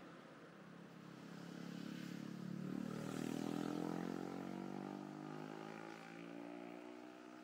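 A motorbike passing on the road, its engine growing louder to a peak about three and a half seconds in, then fading away.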